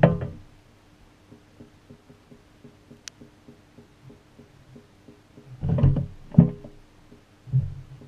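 Shacklock (Fisher & Paykel) Gentle Annie agitator washer heard from inside its tub: wet laundry and water thump against the camera housing at the start and again in bursts near the end. Between the bursts a faint steady motor hum with light ticking runs on, with one sharp click partway through.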